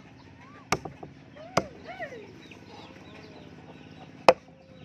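A freshly forged survival knife chopping into meat and bone on a chopping block: three sharp chops, about a second apart and then one more near the end, the last the loudest. Chickens cluck between the chops.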